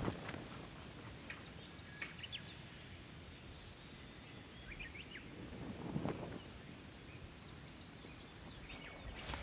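Scattered short bird chirps and calls over a faint, steady outdoor background, with one brief soft thump about six seconds in.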